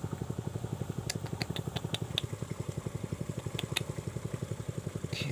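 A small engine running steadily with a rapid, even chugging beat, with a few short sharp ticks about one to two seconds in.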